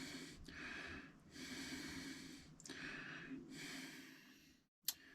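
A person breathing close to the microphone, faint, with a breath in or out about every second. A single sharp click comes near the end.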